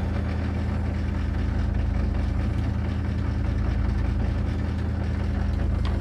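LG Direct Drive front-load washer growling on start-up: a loud, steady low hum with a fast buzz through it. The growl comes from a faulty drain pump, which the uploader found to be the cause.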